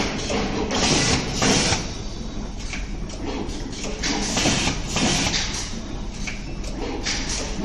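Fully automatic wire stripping, crimping and tin soldering machine running its cycle: a steady low hum with short hissing, clattering strokes about one to two times a second.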